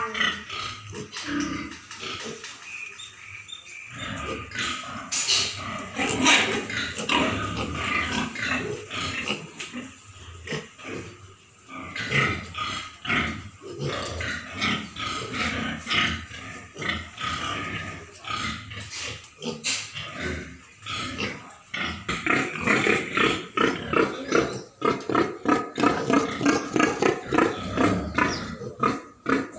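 Pigs and piglets grunting in a pen, many short calls overlapping, louder and more frequent in the last several seconds.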